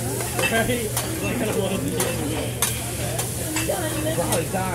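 Fried rice sizzling on a hot steel teppanyaki griddle while metal spatulas chop, scrape and turn it, with sharp clicks as the blades strike the steel every half second or so.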